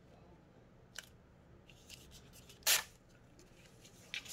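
Paper being handled at a craft table: a light tap about a second in, and one short, sharp rustle of paper a little before three seconds in.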